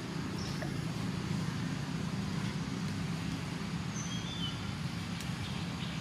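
Steady low rumble of engine-like background noise, with a couple of faint high chirps about four seconds in.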